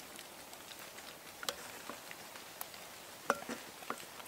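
Wooden spoon knocking lightly against a cast-iron Dutch oven while ladling stew, a handful of soft scattered clicks. The two loudest, late on, carry a brief ring.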